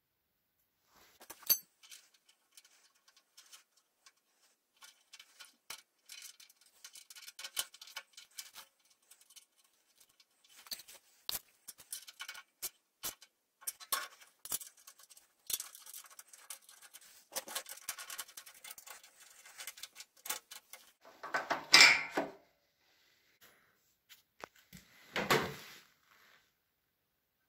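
Small metal parts of a cab door lock and handle clicking, ticking and rattling as they are fitted and worked by hand on a steel door frame. Two louder noises, each about a second long, come near the end.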